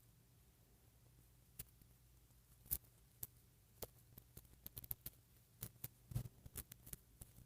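Small plastic doll parts and hair pieces being handled: scattered light clicks and taps at an irregular pace, the two loudest about three and six seconds in, over a faint low hum.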